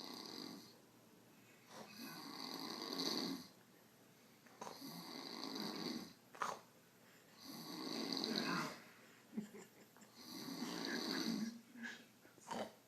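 A man snoring in a slow, regular rhythm: about four long snores, each a second or so, roughly every three seconds. There is a brief sharp sound about halfway through.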